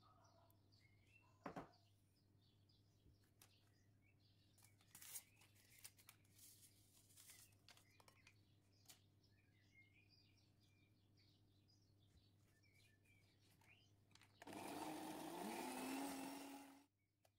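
Faint scattered clicks and taps of kitchen utensils. About fourteen seconds in, an electric mixer runs for about two and a half seconds, its motor whine rising as it spins up, then stops suddenly.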